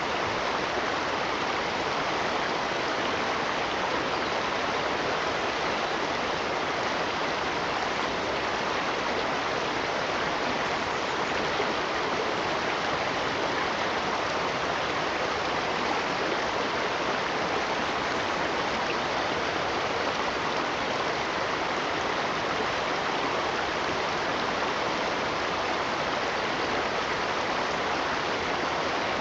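Stream of running water flowing steadily: an even, unbroken rush with no change throughout.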